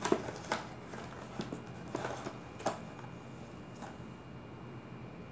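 A metal spoon scooping ground spice from a foil bag inside a tin: a few faint taps and clicks of spoon against foil and tin, spread over the few seconds.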